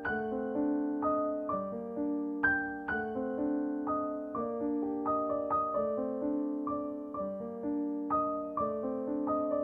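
Background piano music: a gentle melody of struck notes and chords, each ringing and fading before the next.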